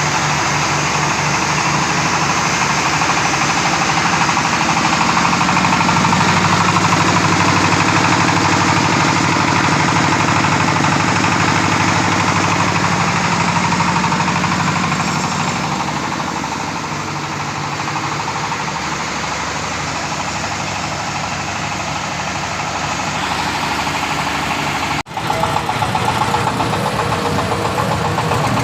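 Engine-driven corn sheller running steadily, the engine's drone mixed with a dense rattling hiss, with a brief break about 25 seconds in.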